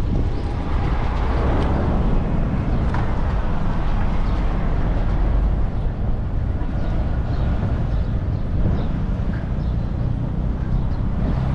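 Steady low rumble of wind buffeting the camera's microphone, with faint bird chirps above it.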